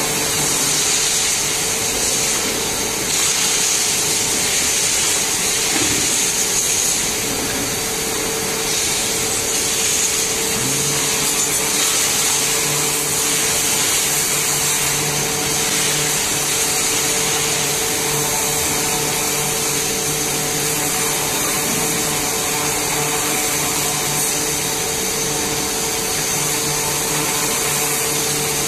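Steady, loud rushing hiss of a high-pressure jet from a hand-held lance blasting a red-hot steel forging blank, with a steady machine hum beneath it; a lower hum joins about ten seconds in.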